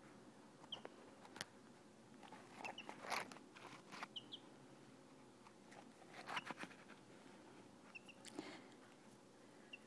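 Baby chicks giving short, faint high peeps now and then, with scattered taps and scrapes close to the phone's microphone as the chicks peck at the phone.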